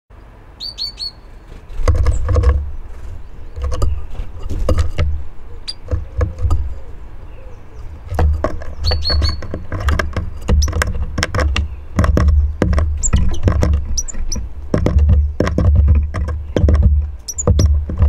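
Great tits at a wooden bird feeder: frequent sharp knocks and low thumps on the wood as they land, hop and peck at seed, with a few short high chirps, a quick run of them near the start and again about nine seconds in.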